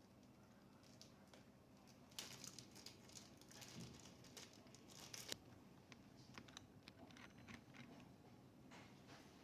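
Faint crinkling and rustling with scattered light clicks, the sound of hands handling packaging and laptop parts. It is busiest from about two seconds in to a little past five seconds, then thins to occasional clicks.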